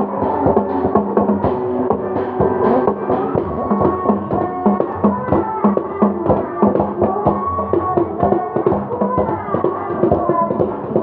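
Music with a quick, even percussive beat under a melody.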